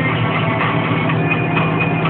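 John Deere tractor engine running steadily, heard from inside the cab, with music playing over it.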